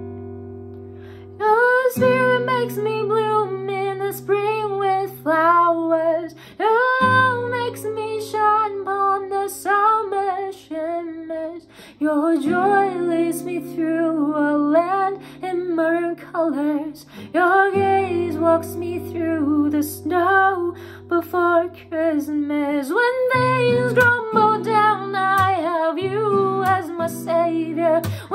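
A woman singing a slow melody over strummed acoustic guitar chords. The guitar rings alone for the first second or so before the voice comes in, and the chords change every few seconds.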